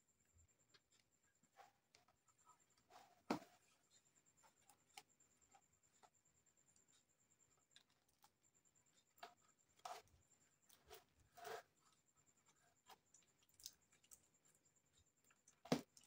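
Faint scratching and scraping of a small blade working at the packing tape on a cardboard tube's end cap, with scattered clicks; the sharpest knocks come about three seconds in and near the end.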